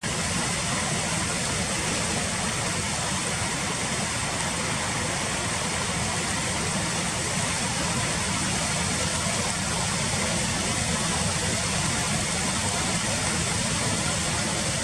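Steady background noise: a constant low rumble with a hiss over it, even throughout, with no distinct calls or events.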